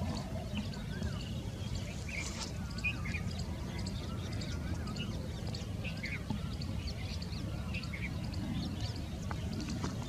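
Many birds chirping and calling, short high chirps mixed with lower wavering calls, over a steady low rumble.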